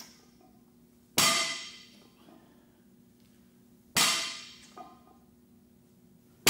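Loaded barbell with plates set down on a lifting platform between deadlift reps: three sharp clanging impacts about two and a half to three seconds apart, the last right at the end, each ringing out for about a second.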